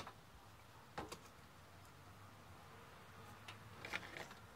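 Near silence with a few faint, scattered clicks: one at the start, a pair about a second in, and two more near the end.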